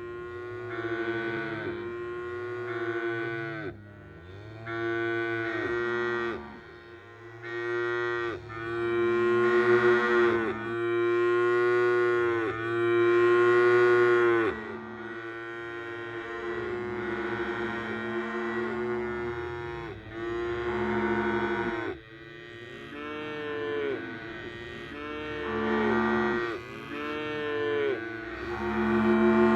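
Large herd of cattle mooing: many long moos overlapping one after another without a break, some rising and falling in pitch.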